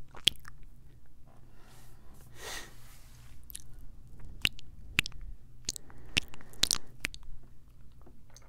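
Close-up kissing mouth sounds on a Tascam recorder's microphones: wet lip smacks and pops at an uneven pace of one or two a second, with a longer breathy sound about two and a half seconds in.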